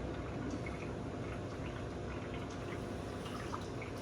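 Aquarium water trickling and dripping steadily over a low pump hum, with small scattered drips.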